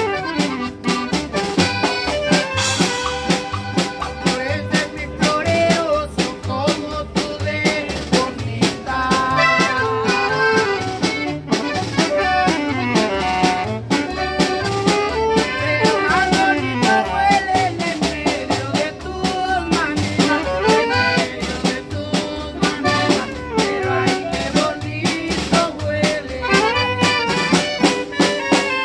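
Norteño-style band playing live: alto saxophone and piano accordion carry the melody over acoustic guitar, upright bass and a drum kit, with a steady bass beat.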